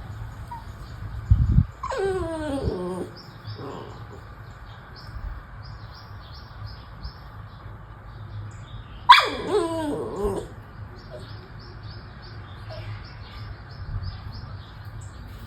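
Dog whining twice, each a loud cry that falls in pitch over about a second, some seven seconds apart: a dog begging for a toy that is being held back. A short thump comes just before the first cry.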